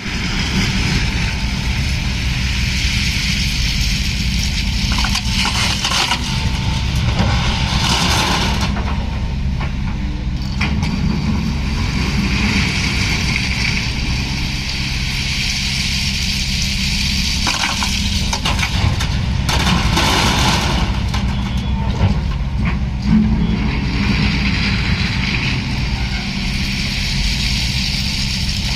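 SANY excavator working, its diesel engine running steadily under hydraulic load as the upper structure swings. A hiss swells and fades every few seconds, with several sharp knocks.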